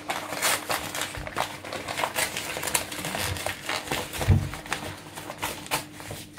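Paper wrapping crinkling and rustling as it is pulled open by hand, with irregular crackles throughout and a couple of dull knocks against the counter.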